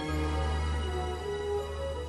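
Soft background music: sustained synthesizer chords over a low drone, with slow melodic notes on top.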